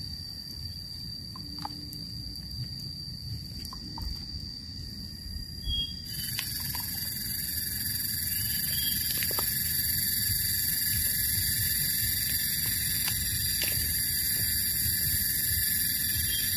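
Forest insects buzzing: a steady high whine, joined about six seconds in by a louder, denser insect chorus that then holds steady.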